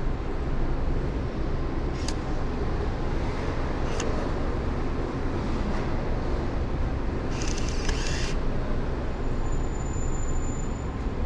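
Steady outdoor street background noise with a heavy low rumble, with a couple of sharp clicks about two and four seconds in and a brief high whir lasting about a second near eight seconds in.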